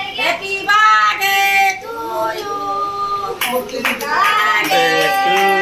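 Children and women singing a birthday song together, in held, wavering notes.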